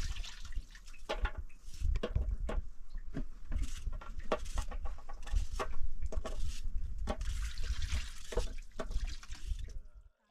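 Water sloshing and splashing, with many irregular short knocks, stopping suddenly near the end.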